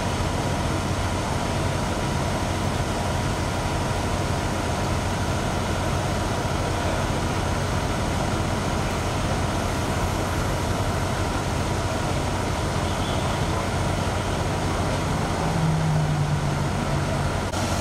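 Steady low rumble of idling vehicle engines with traffic noise. A louder low drone swells for about two seconds near the end.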